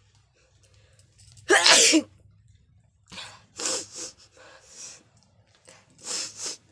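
A woman sneezing, brought on by sniffing chili: one loud sneeze about a second and a half in, then a run of weaker bursts of breath, and a second sneeze near the end.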